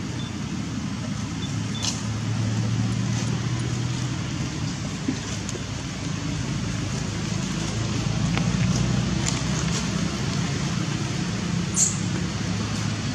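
A steady low motor hum, like an engine running, with a couple of short clicks about two seconds in and near the end.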